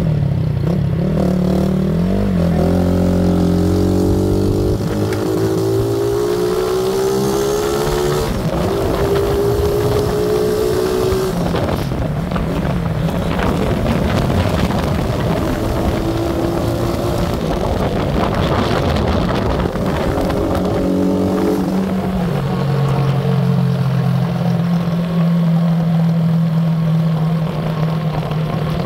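Motorcycle engine running under way, its pitch climbing over the first several seconds and then holding steady. Wind rushes over the microphone in the middle stretch.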